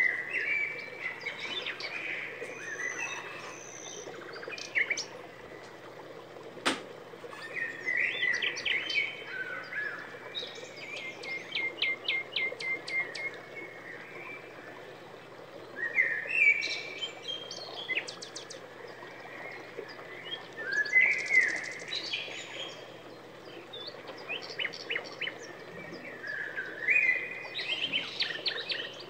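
Small songbirds singing and chirping: short trills and quick runs of repeated high notes in phrases every few seconds, over a faint steady low hum. A single sharp click about six and a half seconds in.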